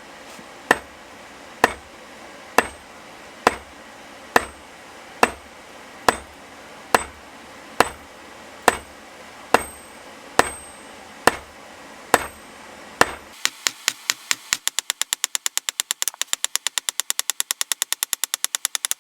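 Hand hammer striking hot steel on an anvil, forging a pair of tongs: a steady run of hard blows about one a second, each with a bright ring. About thirteen seconds in it switches to a fast run of much lighter taps, several a second.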